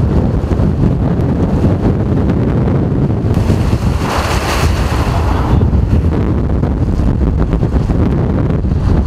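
Strong wind buffeting the microphone as a heavy, steady rumble, with a louder rushing hiss for about two seconds midway.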